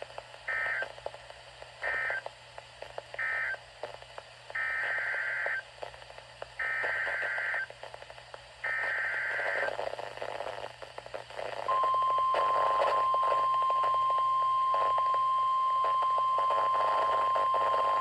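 NOAA Weather Radio Emergency Alert System signalling over a weather radio receiver. First come three short end-of-message data bursts, then three roughly one-second SAME header data bursts. About twelve seconds in, the steady 1050 Hz warning alarm tone starts, signalling that a new warning is about to be read.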